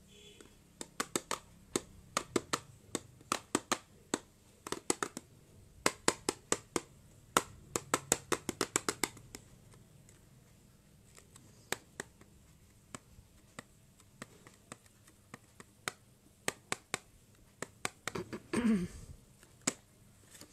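Fingernails and fingers clicking and tapping against cardboard cosmetic boxes held in the hands: quick, irregular sharp clicks for the first nine seconds or so, then sparser ones, with a brief sound falling in pitch near the end.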